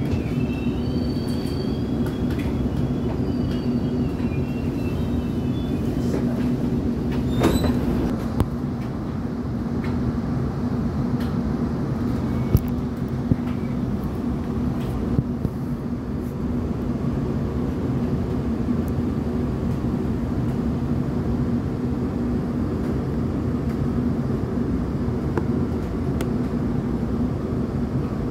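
Electric commuter train running along the line: a steady hum of motors and rolling wheels, with a thin high wheel squeal in the first few seconds and a few sharp clicks.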